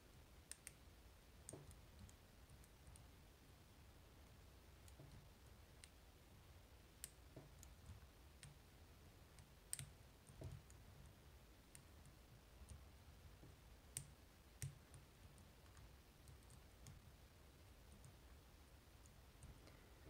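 Faint, irregular light clicks of a side pin pick and tension wrench working the sidebar side pins inside a brass Assa Twin 5700 lock cylinder, with a few sharper ticks among them.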